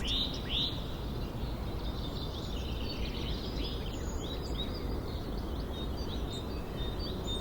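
Nature soundscape of small birds chirping now and then, short high arching chirps, over a steady low background rumble.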